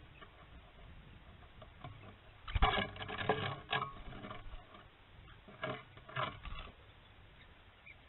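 Bluebonnet parrots' wings fluttering as several fly in and land on a concrete water trough. The flapping comes in two clusters, a louder one about two and a half seconds in and a weaker one near six seconds.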